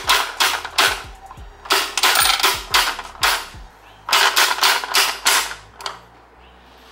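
Gumball machine coin mechanism turned by hand, driving a plastic dispenser wheel gear to gear: rapid mechanical clicking and ratcheting in three runs with short pauses, falling quieter near the end.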